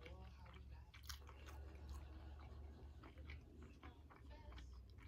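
Faint close-up chewing of a mouthful of food: scattered soft, wet mouth clicks over a low steady hum.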